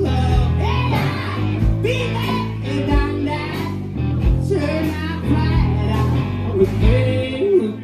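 Live rock band playing: electric guitars, bass guitar and a drum kit with a steady kick-drum beat, and a man singing into the microphone. The low bass drops away just before the end.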